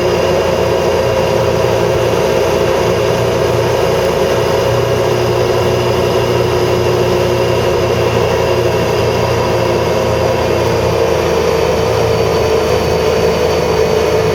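Four-wheeler (ATV) engine running loud at a steady speed while riding.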